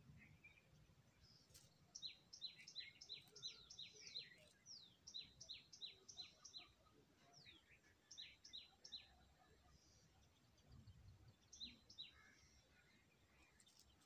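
Nestling songbirds begging: thin, high chirps that slide down in pitch, given in quick runs of about five a second with short pauses between runs.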